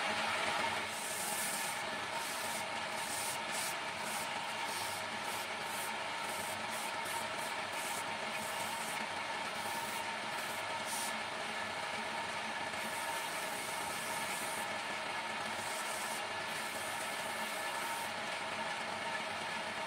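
Electric wood lathe motor running steadily with a walnut vase spinning on it, while sandpaper is pressed against the turning wood in short strokes that add an on-and-off hissing scratch.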